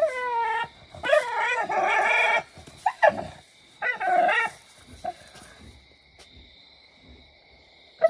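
American bully dog whining in four high, wavering calls over the first half, the longest about a second and a half.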